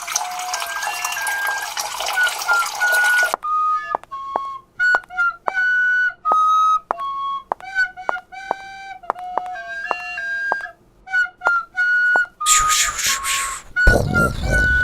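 A flute-like melody of short, separate notes. A steady hiss of noise runs under it and stops about three seconds in, and near the end there is a brief burst of hissing noise followed by a louder, rough rumble.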